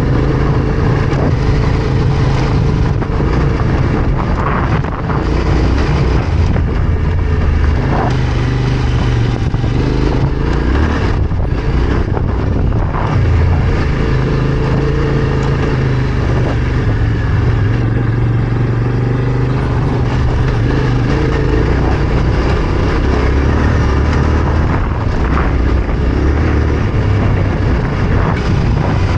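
Yamaha Ténéré 700's parallel-twin engine running under way on an off-road ride, its note shifting up and down with the throttle, with a few short knocks along the way.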